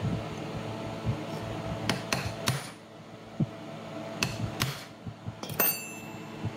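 Ball-peen hammer striking a metal punch held against a small brushed DC motor, tapping a part back into place. About six sharp metallic taps, the last ringing briefly.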